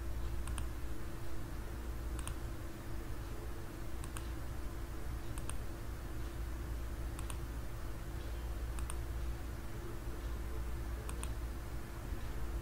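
Computer mouse clicking, about seven short sharp clicks spaced every second and a half to two seconds, each one placing the next line point in a CAD sketch. A steady low hum runs underneath.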